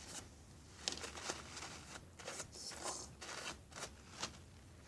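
Faint rustling and a few sharp little clicks from hands being wiped clean of sticky slime.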